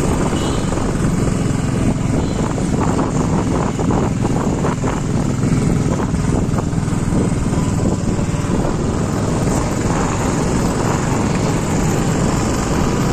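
Motorcycle riding along a paved road, its engine running steadily under a heavy rush of wind buffeting the microphone.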